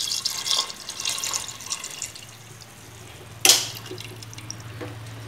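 Jaggery syrup pouring in a trickle onto cooked rice in a steel bowl, a liquid splashing and pattering for about the first two seconds before it thins out. A single sharp clink of metal about three and a half seconds in.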